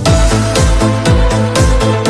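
Electronic dance music with a steady beat of about two bass-drum hits a second.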